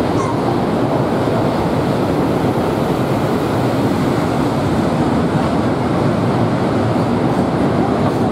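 Steady, loud rushing of wind on the microphone.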